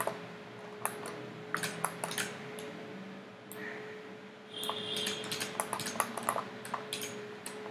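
Irregular clicks of a computer mouse and keyboard, spaced unevenly, over a faint steady electrical hum.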